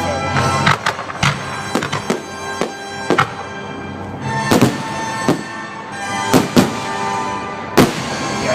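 Fireworks going off: a dozen or so sharp bangs and pops at irregular intervals, over music with long held droning tones.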